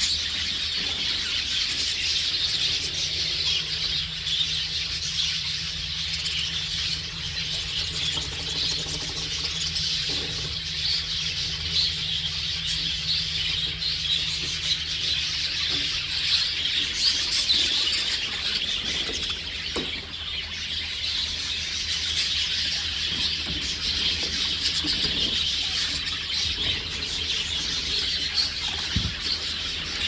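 A flock of budgerigars chattering and warbling without pause, many short chirps and squeaks overlapping, over a steady low hum.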